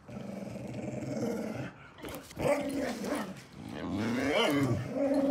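Dog growling in play: a low, fairly steady growl for under two seconds, then after a short break a longer run of growls that rise and fall in pitch.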